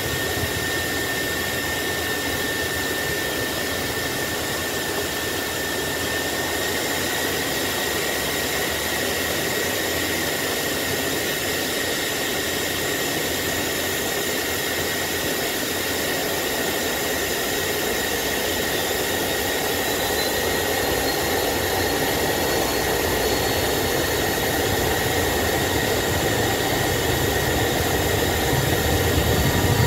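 Twin turbofan engines of a Cessna Citation Bravo heard inside the cockpit: a steady jet hum with a high-pitched whine. Near the end the sound grows louder and a low rumble builds as the throttles are advanced for the takeoff roll.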